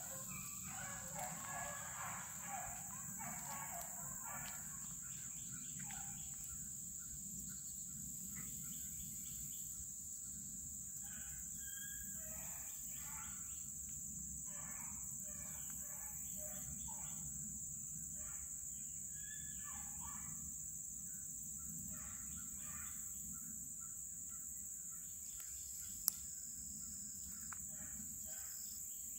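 Steady high-pitched insect chorus from summer brush, with short distant calls scattered through it and a single sharp click near the end.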